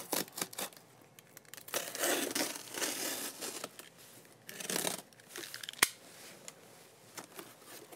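Packing tape on a cardboard box being slit with a box cutter and torn open, with cardboard rustling in several bursts. A single sharp click comes about six seconds in.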